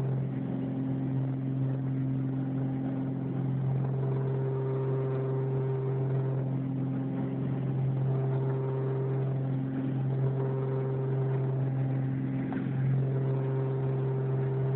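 Steady engine drone of a small propeller plane after takeoff: a constant low hum with higher tones that fade in and out every few seconds.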